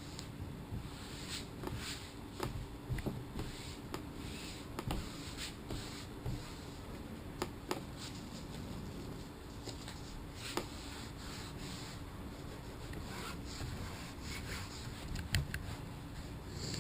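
Hands rubbing and pressing headliner fabric onto the glue-coated headliner board, a soft rubbing sound with scattered light clicks and taps over a steady low background hum.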